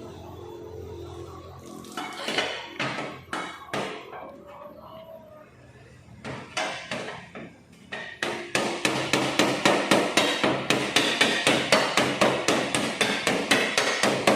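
A hammer beating metal: a few scattered knocks, then from about two-thirds of the way in a fast, even run of blows, about five a second.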